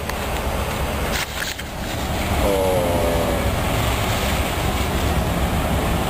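Low, steady rumble of a boat's engine mixed with wind on the microphone, growing louder about two seconds in, with a brief pitched sound around the three-second mark.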